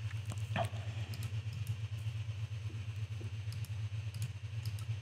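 Steady low hum with faint, scattered computer mouse and keyboard clicks.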